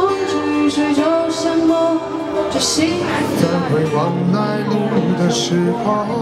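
Live acoustic music: acoustic guitar playing under a singing voice with held sung notes and a few light percussive taps.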